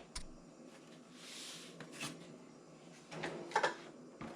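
Faint handling noises: a few small clicks and knocks, a soft brief rustle about a second in, and a short cluster of knocks past the three-second mark.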